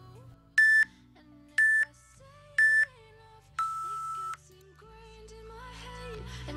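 Workout interval timer counting down: three short high beeps about a second apart, then one longer, lower beep that signals the start of the exercise. Soft background music underneath, growing louder near the end.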